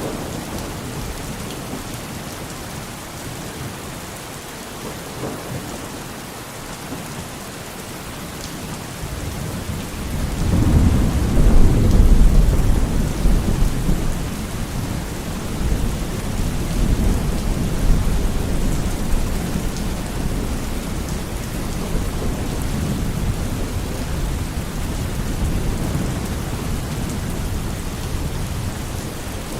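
Steady heavy rain with a long roll of thunder that swells about ten seconds in, peaks a couple of seconds later and slowly rumbles away.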